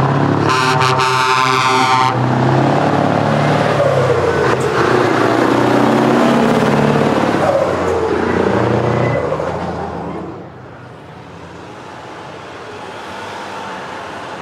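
Scania 144L 530 truck's V8 diesel engine running under load as it rounds the roundabout and passes close by, with a horn blast of about a second and a half near the start. The engine sound falls away about ten seconds in as the truck goes past, leaving quieter traffic.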